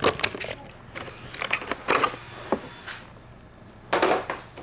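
Clicks, taps and rattles of a power cable and its plastic connector being handled and plugged in, in a few short clusters, the biggest near the start and about four seconds in.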